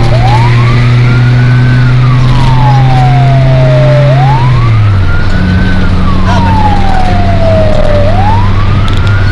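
Fire engine's wail siren, each cycle rising for about a second and a half and then falling slowly for about two and a half seconds, heard from inside the cab over the steady drone of the truck's engine. The engine note drops in pitch about halfway through as the truck slows.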